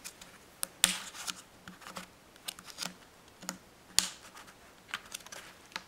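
Fingernails clicking and scratching on the clear plastic disc tray of a Blu-ray steelbook case while trying to pry the tray loose: a scattered series of sharp clicks and small ticks, loudest about a second in and again about four seconds in.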